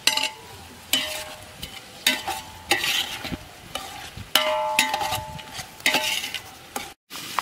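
Long metal spoon stirring in a metal cooking pot, knocking and scraping against its side in about nine ringing clanks, over the sizzle of onions frying in oil.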